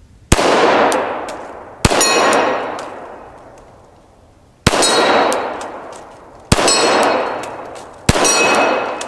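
Five shots from a Glock 41 .45 ACP pistol at an uneven pace, about one and a half to three seconds apart. Each shot is followed by the ringing clang of a struck steel target that dies away over a second or two.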